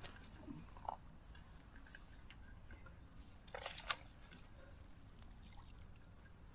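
Small birds chirping in a run of short falling calls over a steady low background rush. About three and a half seconds in comes a brief, sharp crackle, the loudest sound.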